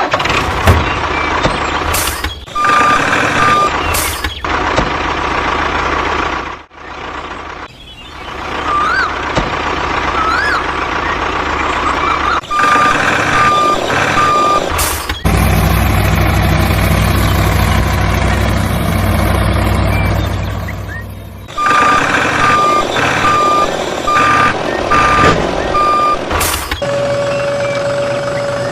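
Truck engine running while a reversing alarm gives repeated high beeps in several runs. The sound changes abruptly a few times, like spliced clips. Near the end a steady single tone takes over.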